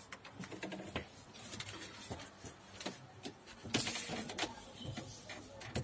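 Scattered clicks, knocks and rustles of a child moving about and settling onto a wooden chair, with a louder scuffle about four seconds in.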